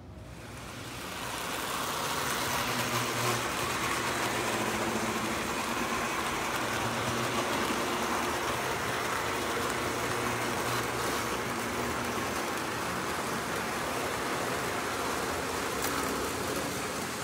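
Lionel O gauge model train running on three-rail track: a steady rumble of wheels and motor that rises over the first couple of seconds and then holds level.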